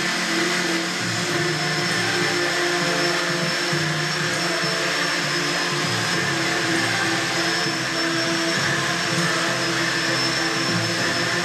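The rotors and motors of the NUSLion UAV, a small unmanned rotorcraft, buzz steadily as it hovers and flies slowly indoors. The sound is a continuous rotor hum with a high whine whose pitch wavers slightly.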